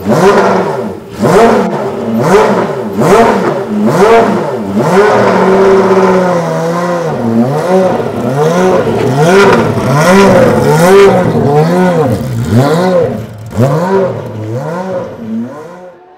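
Aston Martin Vulcan's naturally aspirated V12 being revved again and again, quick blips rising and falling in pitch about once a second, with one longer held rev in the middle. The revving dies away near the end.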